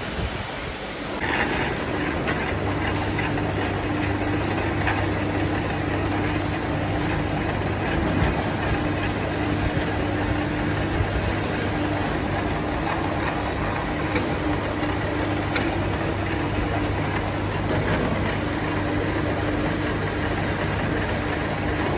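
Drill press running as its bit cuts into a metal block, with a steady motor hum.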